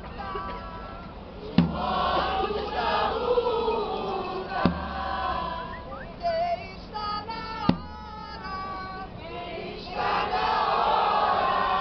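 A group of voices singing and chanting together, with a loud, deep thump struck three times, about every three seconds.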